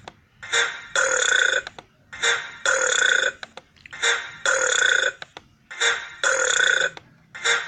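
A person belching over and over: a short burp then a longer one, the pair repeating evenly about every 1.7 seconds, four times, with a fifth short burp near the end.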